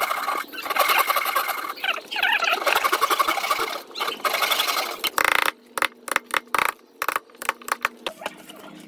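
Hand saw cutting a notch in a thin pine strip, with rasping back-and-forth strokes broken by short pauses. After about five seconds the sawing stops and a quick run of sharp wooden clicks and knocks follows.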